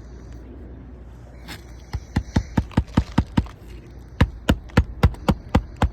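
Hammer driving a 1 1/4-inch roofing nail through an asphalt shingle to fasten it back down. It starts about two seconds in as a quick run of sharp strikes, about four or five a second, pauses briefly, then goes on with another fast series.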